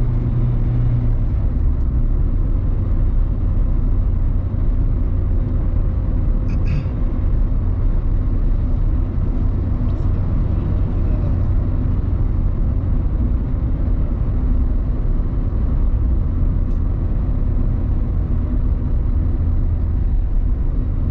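Steady low rumble of a car driving at highway speed, tyre and engine noise heard from inside the cabin, with a couple of faint brief clicks.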